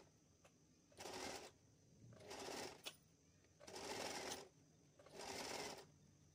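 Sewing machine stitching lace trim onto fabric in four short runs of under a second each, stopping and starting between them, with a small click between the second and third runs.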